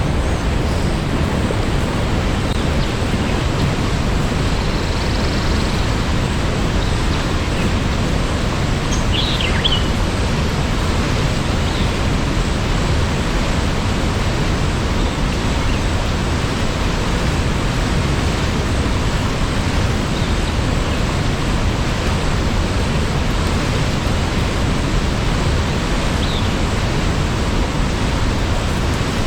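Steady rushing of a waterfall, heaviest in the low range, with a faint bird chirp about nine seconds in.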